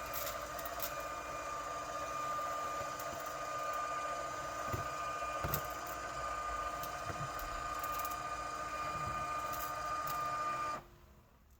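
Litter-Robot 3 Connect's drive motor turning the globe with a steady whine, broken by several sharp pops about a second or two apart, loudest about five and a half seconds in; the motor stops abruptly near the end. The popping is unexplained on this brand-new unit.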